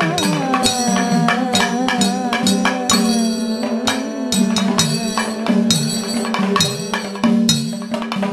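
Kathakali music in raga Kanada: chengila gong and ilathalam cymbals strike a steady beat with edakka and maddalam drums over a steady drone. A melody line glides in pitch over the first few seconds, after which the percussion carries on alone.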